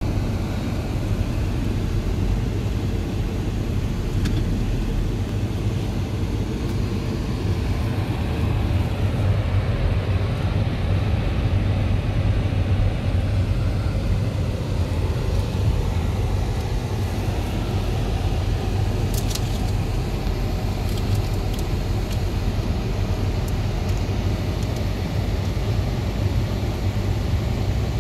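Steady low rumble of outdoor background noise, with a few faint clicks about two-thirds of the way through.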